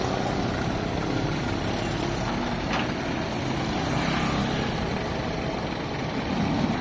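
A motor running steadily, a low rumble of working machinery, with a faint tick about three seconds in.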